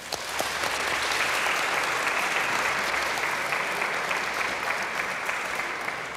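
An audience applauding. The clapping builds up in the first second, then slowly tapers off.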